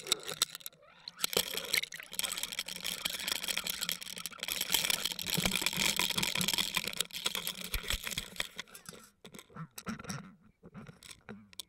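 Water rushing and crackling over an underwater fishing camera's housing as the camera is reeled up through the water, with many small clicks and knocks. The noise thins out with brief dropouts near the end as the camera clears the surface.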